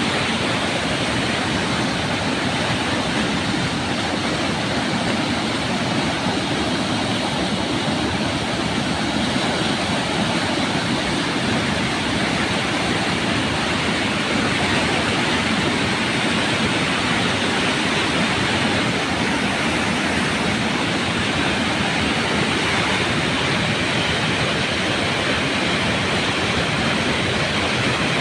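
Floodwater rushing in a steady, unbroken roar of moving water.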